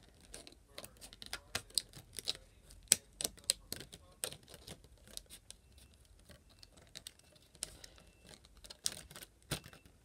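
Scissors snipping through a thin clear plastic plate, with many irregular sharp clicks and crackles as the plastic is cut and turned in the hands.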